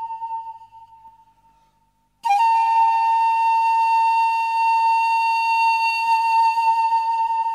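Background music on a flute: one long held note fades away, then about two seconds in a new long note starts abruptly and is held steady.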